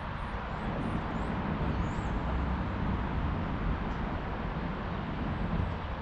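Steady town street ambience: a wash of traffic noise over a low, unsteady rumble, with a few faint high bird chirps in the first couple of seconds.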